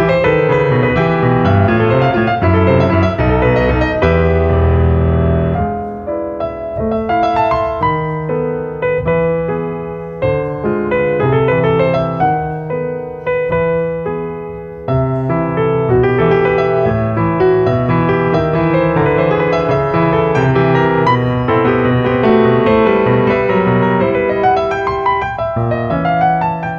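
Steinway concert grand piano played solo: a continuous flow of dense notes across the keyboard, with heavy low bass notes about four to five seconds in.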